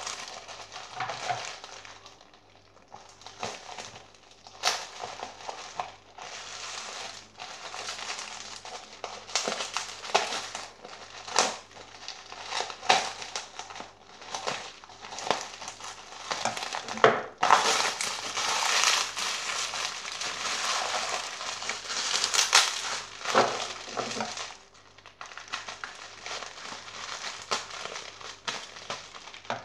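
Plastic bubble wrap crinkling and crackling as it is handled, cut with scissors and pulled open, with many sharp clicks and snaps. The crackling gets busier and louder about two-thirds of the way through.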